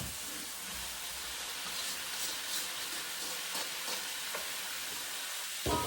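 Pork and carrot frying in oil in a pan, a steady sizzle, with a few light scrapes and a short thump near the end.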